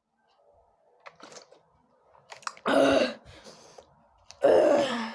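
A person letting out two loud, breathy groans, each about half a second long and about a second and a half apart, with a few small clicks and faint sounds before them.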